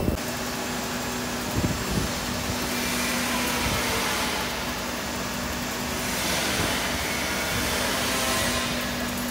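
Large spiral wire fan guard welding machine running: a steady hum with a level low tone under a hiss that swells a few times.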